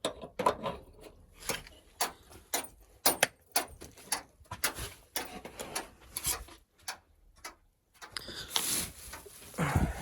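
Irregular clicks and knocks of things being handled, with a longer rustling scrape near the end.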